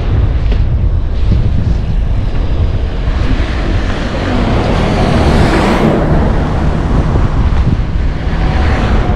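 Wind buffeting the microphone on a moving bicycle, a steady low rumble, with a passing vehicle whooshing up and fading away about five to six seconds in.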